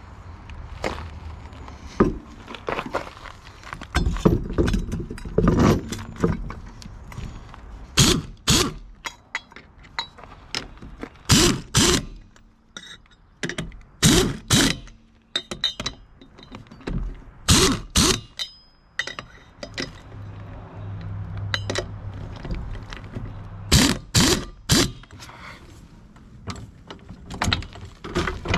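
Lug nuts on a travel-trailer wheel being tightened with a hand wrench: metal-on-metal clicks and clanks, mostly in pairs, repeating every few seconds.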